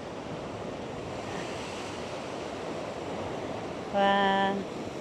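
Choppy sea surging and breaking, a steady rushing wash of surf. About four seconds in, a short steady pitched tone sounds for about half a second over it.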